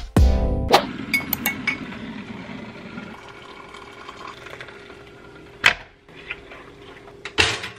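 Hot water poured from a glass electric kettle into a ceramic mug, the stream strongest for the first couple of seconds and then thinning. A sharp clunk follows as the kettle is set back on its base, then another clink near the end.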